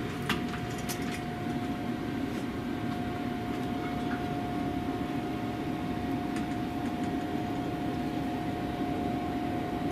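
Weber Smokefire EX6 pellet grill running mid-cook: a steady fan hum with a thin, constant whine over it. A couple of light clicks come near the start.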